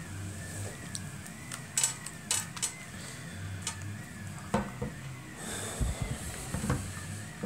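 Scattered light clicks and knocks of small tools and parts being handled on a workbench while a multimeter is set up, with a faint wavering high whine underneath.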